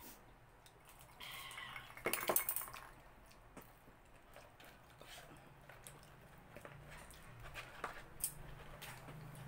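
Dishes and a glass clinking and clattering on a table, loudest in a cluster of sharp strokes about two seconds in, followed by scattered light clicks and taps.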